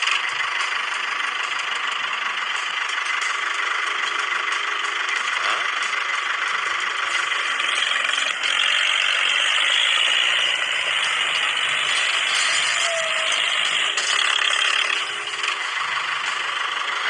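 Small electric motor and plastic gears of a homemade toy tractor running steadily, a continuous rattling whir.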